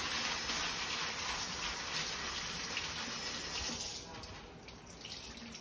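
Kitchen tap running into a sink, the stream splashing over a crumpled sheet of baking paper being wetted and squeezed by hand. The flow dies down about four seconds in.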